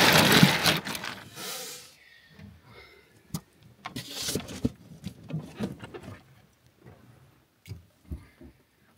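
Water splashing loudly for the first second or two as a big fish is let go, a shorter splash about four seconds in, then a few faint knocks.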